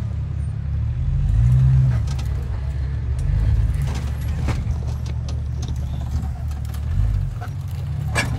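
Jeep Wrangler's engine running at low revs as it crawls over a rocky creekbed, swelling briefly twice, with scattered sharp clicks of rocks under the tyres.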